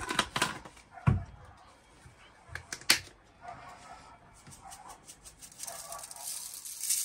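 A few knocks and clicks as spice bottles are handled and set down, then from about five and a half seconds in, a black pepper shaker rattling as ground pepper is shaken out.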